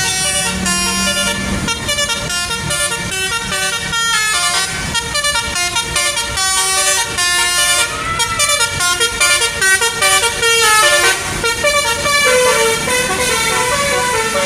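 Bus basuri (telolet) musical horn playing a tune: a run of loud horn notes, some short and some held, changing pitch several times a second.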